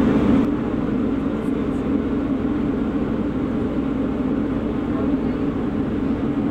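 Steady drone of a warship's machinery heard from the open deck, an even hum over a low rumble with no change in level.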